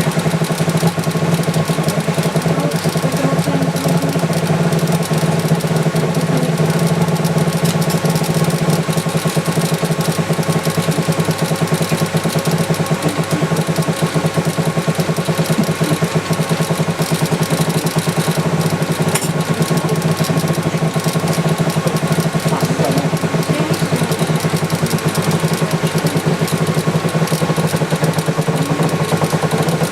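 Subsurface laser engraving machine running as it engraves inside a glass block: a steady mechanical hum with a fast, even buzzing pulse.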